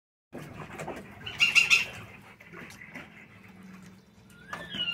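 Birds calling, with a loud burst of high calls about a second and a half in and a rising call near the end, over a faint steady hum.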